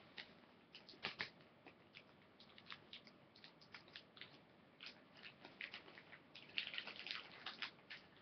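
Faint crinkling and clicking of a plastic baggie and sticky tape being handled while the bag's sides are taped shut, with a denser patch of crackling about two-thirds of the way through.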